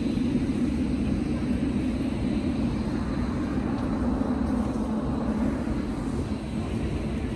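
Steady low rumble of a car, with no separate knocks or horns standing out.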